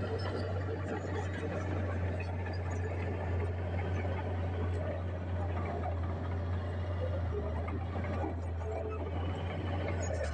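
Heavy diesel truck engines running, a steady low rumble.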